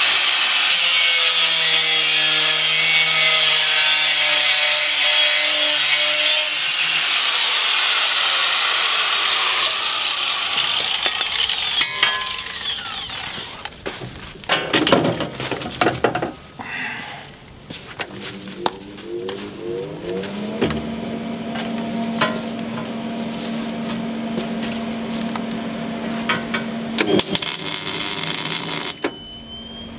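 Angle grinder grinding a welded seam on a steel boat hull: a harsh, even grinding noise for about the first ten seconds, then broken scraping. About twenty seconds in, the grinder motor spins up and runs with a steady hum, cutting off shortly before the end.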